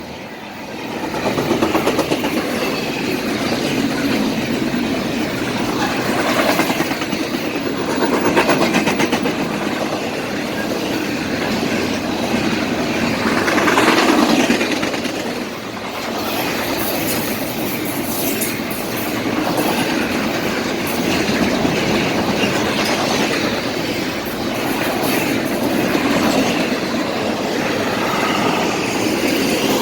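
Cars of a BNSF double-stack container train rolling past: a continuous loud noise of steel wheels on rail, with a fast, even clatter over the rail joints.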